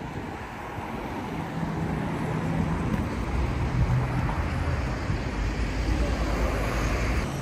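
Engine noise of a passing vehicle, growing louder over the first few seconds, with a steady low hum.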